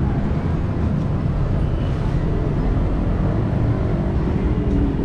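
Steady low rumble of street traffic, with a vehicle engine running nearby.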